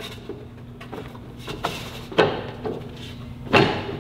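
A step pad being pressed and slid into place on top of a nerf step bar: light clicks and knocks, with louder scraping knocks about two seconds in and again near the end.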